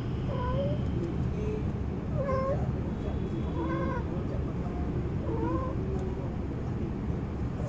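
Cat yowling during mating: a string of short, wavering calls, about one every second, over a steady low rumble.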